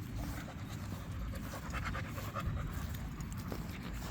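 A dog panting in quick repeated breaths over a low steady rumble.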